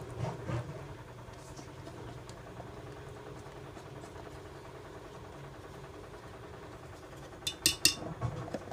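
Washing machine running with a steady mechanical hum. Near the end, a few light clicks from a spoon scraping condensed milk out of a carton into a blender jar.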